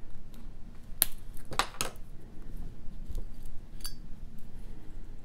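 Small beads and beading tools clicking and clinking as they are handled: a few sharp clicks, then a single brief ringing clink.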